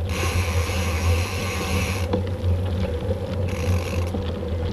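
Mountain bike riding on a dirt trail, heard from a camera on the bike or helmet: a steady low rumble of wind and tyres on the ground. Over it a high buzzing hiss runs for the first two seconds, stops, and comes back briefly near the end.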